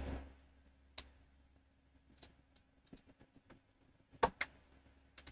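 A few faint, irregular clicks from computer input at a desk, the loudest two close together a little after four seconds in, over a faint steady electrical hum.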